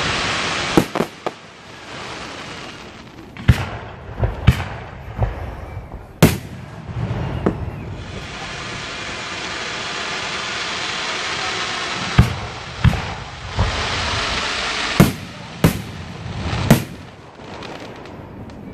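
Aerial fireworks shells bursting with sharp bangs, about a dozen at irregular intervals, each echoing briefly. Through the middle a long hiss swells and fades between the bursts.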